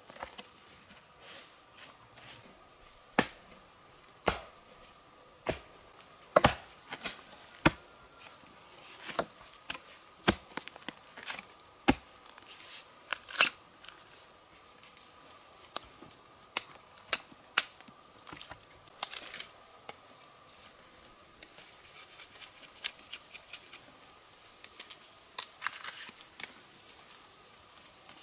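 A string of sharp, irregular clicks and snaps, with stretches of scraping and tearing between them, like hand cutting and stripping of fibrous plant material. A faint steady high tone runs underneath.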